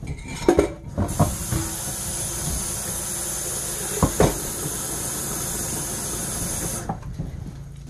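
Kitchen sink faucet turned on about a second in, water running steadily, then shut off shortly before the end, with a few knocks of dishes in the sink.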